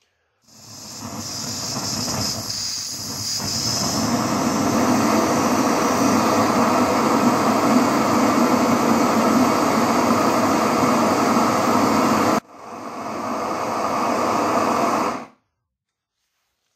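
Handheld canister gas torch burning with a steady rushing noise as its flame plays on a painted metal exhaust tip. It builds up over the first few seconds, cuts out abruptly about twelve seconds in, comes back for about three seconds and stops about fifteen seconds in.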